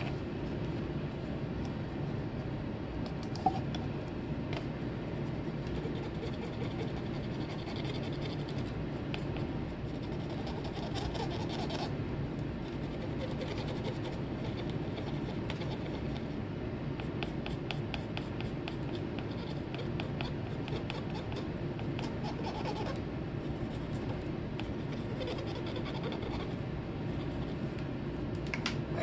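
Cotton swab scrubbing a circuit board around the bare pads of a removed QFP chip: a dry scratching that comes and goes in short runs over a steady low hum. A single sharp click about three and a half seconds in.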